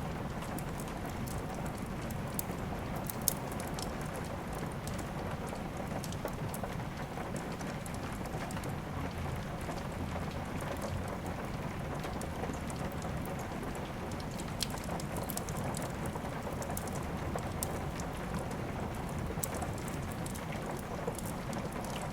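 Steady rain hissing evenly, mixed with a wood fire: scattered sharp crackles and pops run through it, the sharpest about three seconds in.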